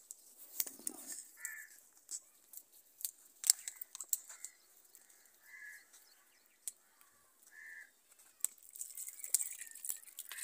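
A crow cawing again and again, short calls every second or so, among sharp clicks and knocks of handling. Near the end a thin stream of water pours from a plastic bottle into a steel pot.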